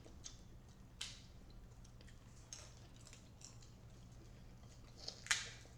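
Faint eating sounds: small wet mouth clicks and short slurps, the loudest about five seconds in, as someone tries to suck an oyster out of its shell.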